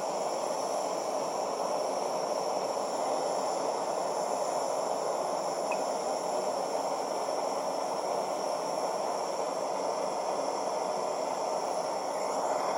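Propane-fired swirl furnace burner running steadily: an even rushing noise with no change.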